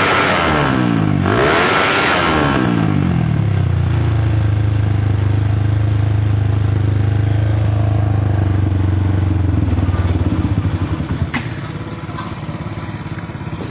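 Suzuki Satria FU motorcycle engine with a swapped-in TVS DOHC cylinder head and a PE28 carburettor, blipped twice, then settling into a steady idle. About eleven seconds in the engine note drops away, followed by a couple of sharp clicks.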